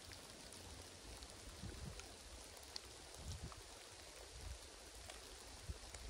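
Faint, steady hiss of light rain or drizzle in cloud, with scattered drops ticking, over an uneven low rumble.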